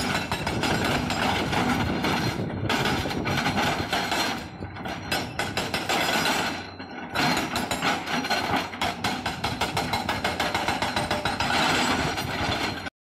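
Epiroc (Atlas Copco) MM1500 hydraulic rock breaker on an excavator hammering rock with a fast run of blows. It lets up briefly a few times, then cuts off suddenly near the end.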